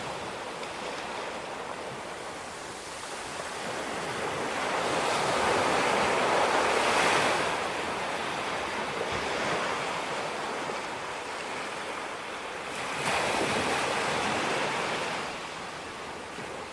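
Ocean waves breaking and washing up on the beach, with two bigger surges, about five and about thirteen seconds in.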